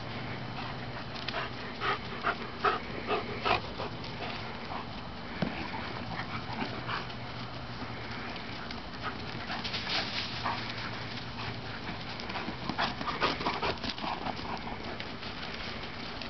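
German shepherds playing, with runs of short, sharp barks: a quick cluster a couple of seconds in, more around the middle, and another near the end, with panting between.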